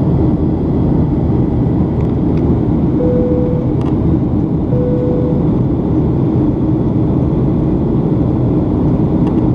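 Steady cabin drone of a Boeing 737-800 in flight, its CFM56-7B turbofans and the rushing airflow heard from inside the cabin by the wing. Two brief steady beeps sound about three and five seconds in.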